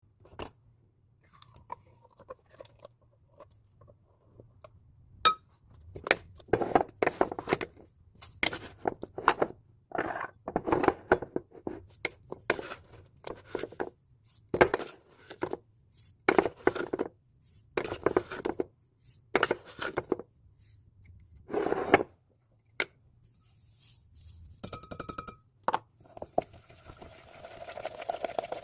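Kitchen utensils and dishes clinking, knocking and scraping in a series of short bursts during baking preparation.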